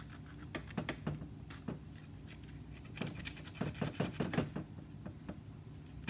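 Coarse sandpaper, folded in half, scratching in short strokes against the leather sole of a figure skate boot, sanding down a lifted, bumpy area. The strokes come in two bouts with a pause of about a second between them.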